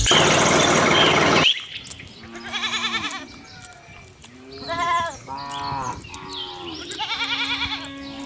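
A loud hissing rush that cuts off suddenly after about a second and a half, then goats bleating about four times with quavering calls.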